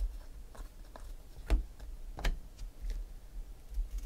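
Stiff baseball cards being flipped and slid through by hand, making scattered light clicks and snaps. The two sharpest come about a second and a half and just over two seconds in.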